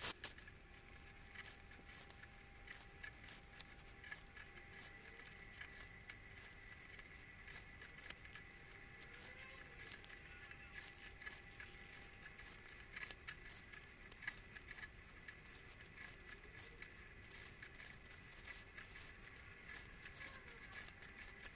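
Faint scattered clicks and rustles of waxed macramé thread being handled, pulled and knotted by hand, over a faint steady tone.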